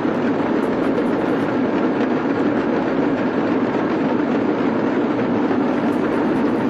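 Many damrus, small hourglass-shaped hand drums, rattled together in one dense, continuous roll with no single beats standing out.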